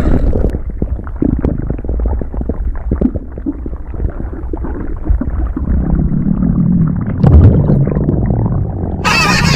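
Long stomach growl: a low gurgling rumble full of small crackles, turning more drawn-out and groan-like in its second half. Near the end a harsher hissing noise comes in on top.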